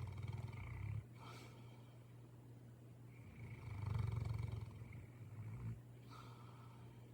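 St. Bernard snoring: a low, pulsing snore fading out about a second in, then a second long snore that swells and fades from about three to six seconds in, with short breaths between.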